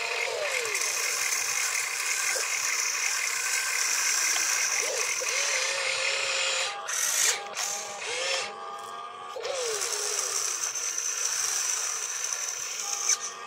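Electric motors of a toy RC excavator whining steadily as the boom, arm and bucket move and the upper body swings. The whine stops and restarts a few times around the middle as one movement ends and the next begins.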